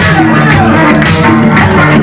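Loud dance music with a steady beat.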